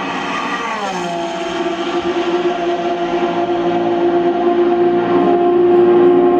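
Racing car engine at high revs, its pitch dropping sharply about a second in and then holding one steady note that grows louder.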